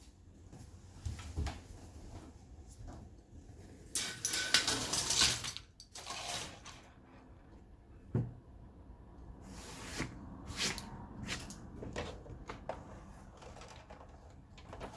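Irregular knocks, clicks and clatter of hard plastic parts and tools being handled while a projector is taken apart, with a longer scraping, rustling stretch about four seconds in.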